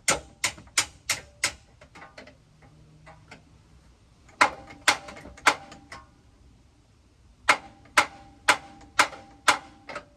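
Hammer blows on steel, each with a short metallic ring, in three bursts: about six quick blows, then four more about four seconds in, then six more near the end. The blows are knocking at stuck, bent bumper parts on a pickup truck.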